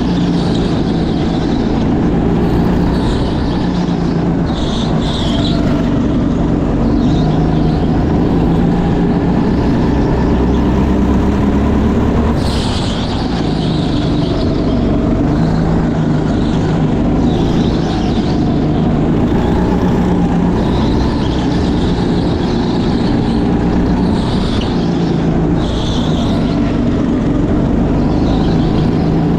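Rental go-kart's small engine running hard, heard from on board the kart. Its note rises and falls over and over as it accelerates and lifts through the corners, with short higher-pitched hisses every couple of seconds.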